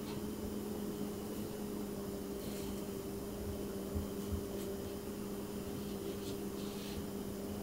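Steady low machine hum in a room, with a few faint soft rustles of a fleece blanket being tucked and smoothed by hand.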